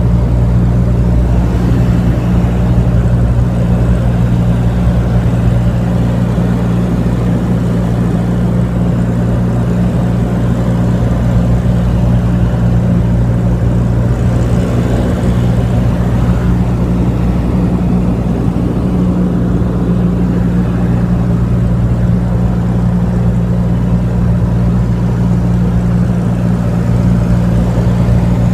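Light aircraft's piston engine and propeller droning steadily, heard from inside the cabin, with a constant low hum.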